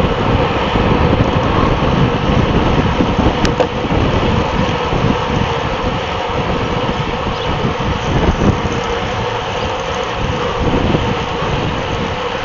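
Wind buffeting the microphone of a bicycle-mounted camera at racing speed, mixed with tyre and road noise from the bunch of road bikes. A single sharp click comes about three and a half seconds in.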